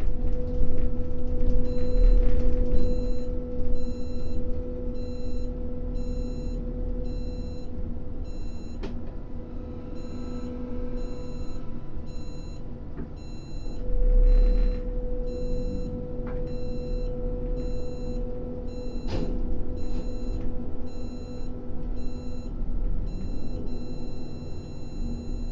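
Grab crane running with a steady low machinery hum, which swells for a while in the middle as the load on the machinery rises. Its warning beeper sounds in short high beeps, about two a second, from about two seconds in, and there is a sharp knock a little past the two-thirds mark.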